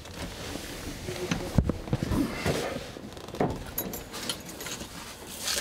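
A few scattered knocks and clicks with clothing rustle as a person moves at a car's open driver's door and seat. The engine is not running.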